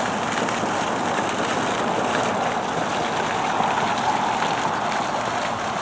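A steady rushing noise of a car being driven along a road, with tyre and wind noise.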